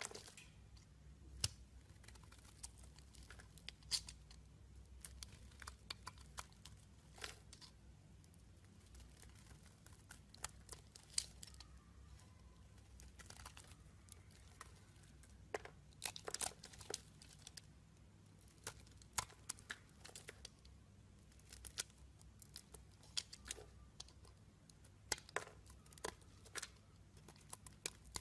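Utility-knife blade cutting and shaving a bar of soap: irregular, crisp crackles and scrapes as flakes and chunks break away, quiet overall with a faint low hum underneath.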